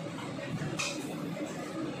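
Steady kitchen background noise with one short, bright clatter a little under a second in.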